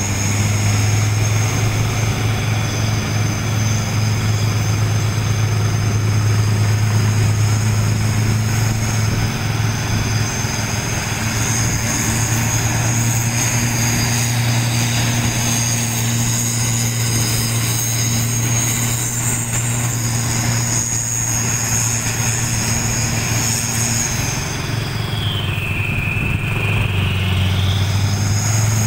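Heavy truck engine running with a steady low drone as the vehicles move slowly in convoy, with steady high-pitched tones above it.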